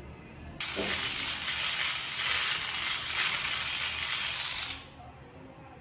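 Electric epilator running against the skin of an underarm, its rotating tweezers plucking hair with a dense, rapid, high buzz. It starts abruptly about half a second in and stops about a second before the end.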